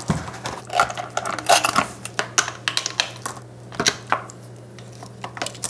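Irregular clicks, clinks and light knocks of parts being handled: a plastic bike fender and its metal wire stays being fitted onto an electric bike's front fork.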